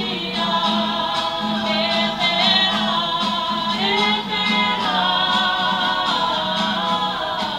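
Māori performers singing a poi song together in harmony, with guitar accompaniment and the steady light taps of twirling poi keeping the beat.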